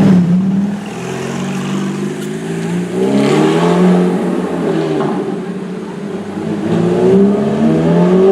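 Ferrari F430's V8 engine revving, its pitch climbing and dropping back twice.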